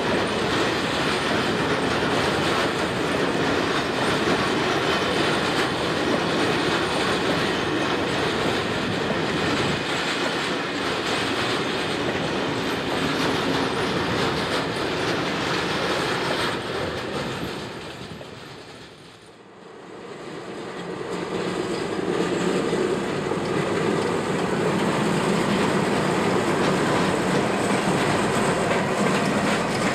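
Freight train of covered sliding-wall wagons rolling past, with steady wheel-on-rail noise. About two-thirds through, the sound fades down and comes back up on another passing train hauled by a diesel locomotive.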